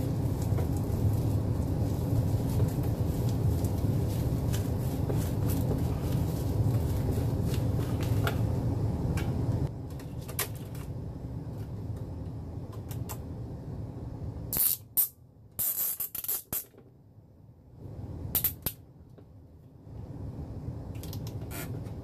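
Clicks and scrapes of plastic parts being handled as a replacement steam tank and its hose are fitted into a whole-home steam humidifier. There is a steady low rumble under the first half, then a few short, sharp hissing scrapes about two thirds through.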